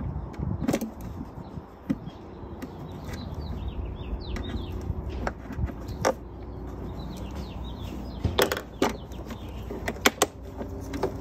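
Scattered clicks and knocks of gloved hands and tools on parts in a car's engine bay, as wiring and the battery-box fittings are worked loose. The knocks come singly, with a quick run of them about eight seconds in and two sharp ones near the end, over a low steady hum.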